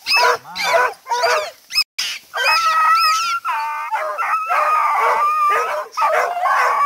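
A pack of hunting dogs yelping and barking in quick short cries, then whining and howling in long, high, held cries from about two seconds in, excited over a freshly caught animal held above them.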